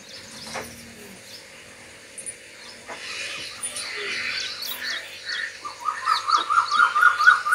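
Small birds chirping with short high repeated notes. Over the last two seconds comes a fast, loud run of quick repeated notes.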